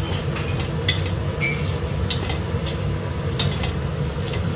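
Metal spatula scraping and turning food in a steel wok during a stir-fry, with three sharp clinks of the spatula striking the wok about a second apart, over a steady low hum.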